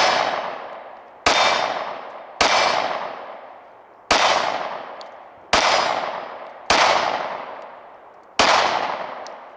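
Glock 26 Gen 5 9mm pistol firing a slow string of seven single shots about one to one and a half seconds apart, each followed by a long fading tail.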